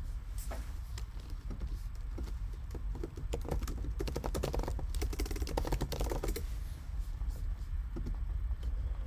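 Typing on a computer keyboard: scattered key clicks, then a fast run of keystrokes from about three to six seconds in, over a low steady hum.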